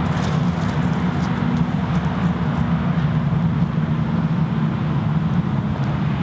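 Steady low rumble of vehicle traffic with a droning hum, unchanging throughout.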